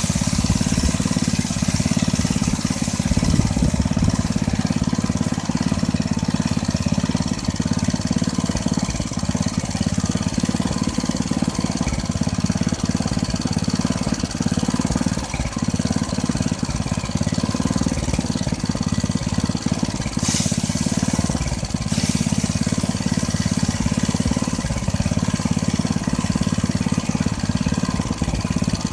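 Rice threshing machine running steadily with a continuous mechanical drone, with two brief hisses about twenty and twenty-two seconds in.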